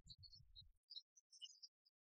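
Near silence, with a faint low rumble in the first second and scattered faint high blips.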